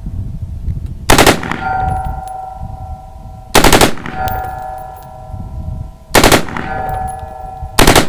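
AR-15 with a standard A2 birdcage flash hider firing four short bursts of automatic fire, each a quick cluster of shots. A ringing tone hangs on between the bursts.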